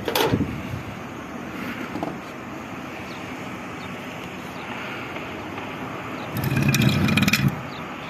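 Metal being handled at an air conditioner's outdoor-unit compressor and its pipework: a sharp knock at the start, then about a second of clattering and scraping near the end, over steady background noise.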